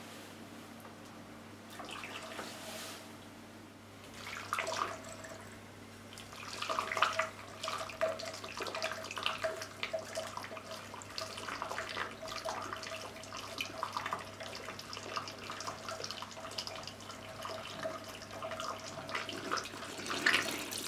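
Boiling water being poured through a hose into a cold engine to flush it out, trickling and gurgling with irregular splashes that pick up about four seconds in.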